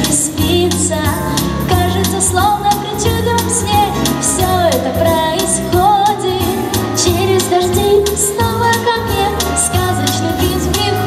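A girl singing a melody live into a handheld microphone over a backing track with a steady beat, amplified through a PA speaker.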